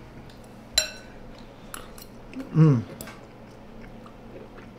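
A utensil clinks once against a serving bowl about a second in, then a few faint clicks of eating from the bowl. A short hummed "mm" from a person tasting the food comes about halfway through.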